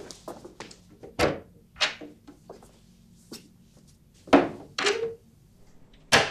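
A string of separate knocks and thuds from a person moving about a room and handling things, with the loudest knocks about four seconds in and again just before the end.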